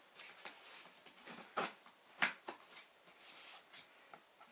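Cardboard subscription box being handled and opened: rustling and light scraping with a few sharp clicks and snaps, the loudest two about one and a half and two seconds in.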